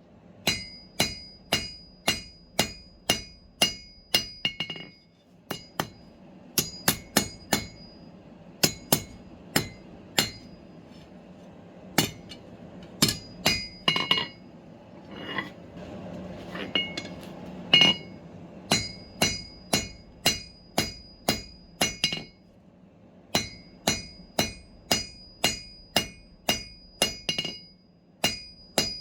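Hand hammer striking steel on an anvil in steady runs of blows, about two a second, each with a high metallic ring. Blows come sparser for a few seconds in the middle, then the steady rhythm resumes.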